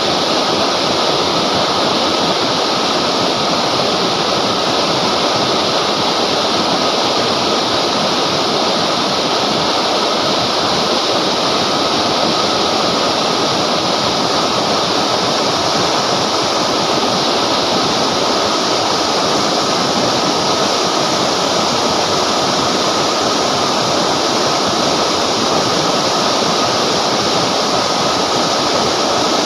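River water rushing steadily, a continuous loud wash of flowing water.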